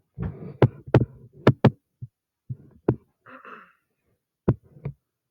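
Irregular sharp knocks and thumps, about seven over several seconds, with a short hiss in the middle.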